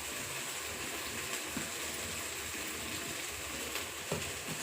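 Ghee sizzling steadily in a kadhai as food fries, with a few faint taps in the second half.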